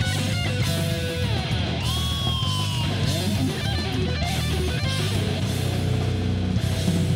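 Heavy metal band playing: distorted electric guitar lead with bent, held notes that glide in pitch, about two to three seconds in, over a steady, heavy low end.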